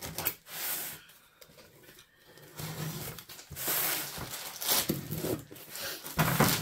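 Packing knife slitting the packing tape on a cardboard box, with cardboard scraping and a plastic mailer bag crinkling as parcels are opened; the loudest rustle comes near the end.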